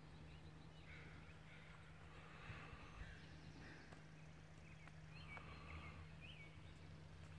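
Quiet outdoor ambience: a few faint, short bird calls scattered through, over a low steady hum.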